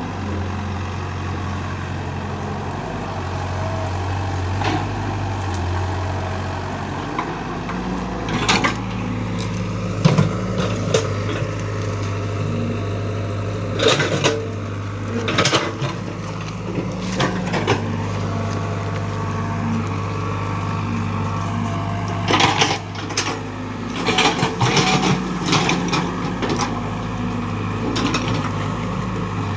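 Heavy machine's engine running steadily, joined about eight seconds in by repeated clanks and knocks that come in bunches, loudest near the middle and toward the end.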